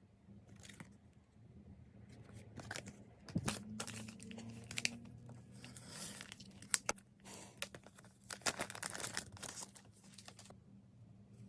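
Packaging being torn open and crinkled by hand, in a run of irregular ripping and crackling strokes that starts about two seconds in and dies away near the end.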